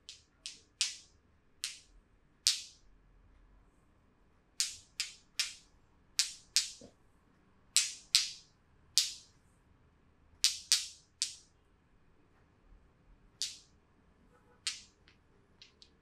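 Hands slapping bare skin during a back massage: about twenty short, sharp slaps, irregularly spaced, some coming in quick pairs or threes.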